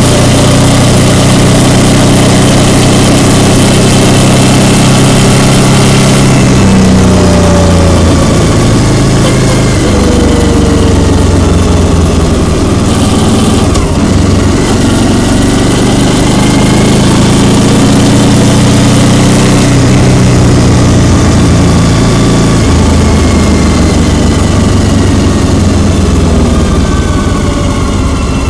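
Vehicle engine running while driving in traffic, its pitch rising and falling with speed, under heavy road and wind noise.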